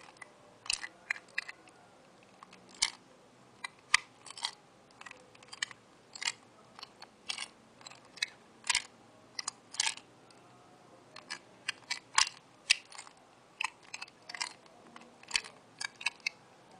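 Plastic Square-1 puzzle clicking as its layers are twisted and flipped in quick succession, a few sharp clicks a second with short pauses, while the parity algorithm is carried out.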